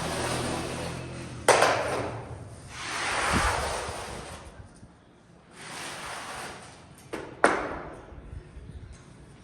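Tile-laying work noises: two sharp knocks about six seconds apart, each with a short ring, and swells of scraping noise between them.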